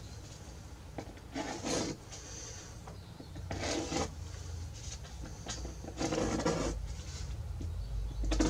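Wood being worked by hand on a guitar top where a padauk rosette is being fitted: four short scraping strokes, each under a second, about two seconds apart.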